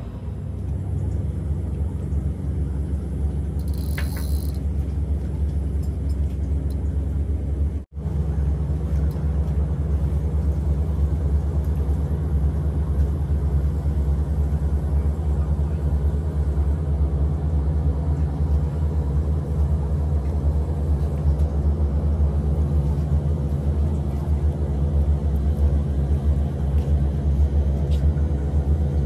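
Steady low rumble of a running engine, with an even hum of several low tones, broken by a brief dropout about eight seconds in.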